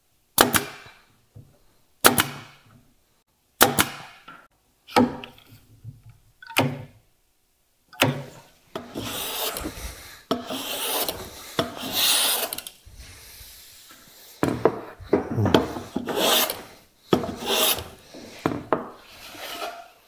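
Five sharp shots from a pneumatic nailer about a second and a half apart, fastening drawer runners into a wooden case, then a run of hand-plane strokes shaving wood.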